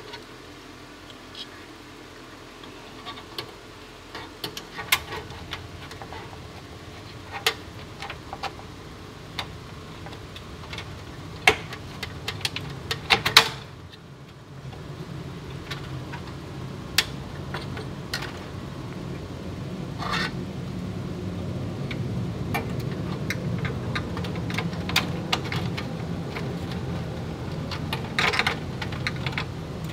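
Scattered clicks and knocks of metal and plastic parts as a graphics card and its bracket are handled and fitted into a steel desktop computer case. A steady low hum comes in about four seconds in.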